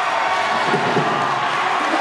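Spectators in a basketball crowd cheering and chattering steadily, with a few dull thumps about a second in.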